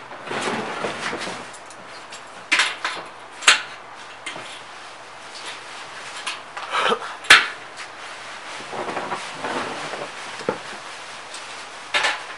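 Metal hand tools and copper still parts clanking and knocking on a workbench, with a few separate sharp knocks among lighter rattling.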